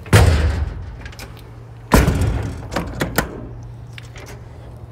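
Metal compartment doors on a utility truck's service body slammed shut twice, about two seconds apart, followed by a few light clicks.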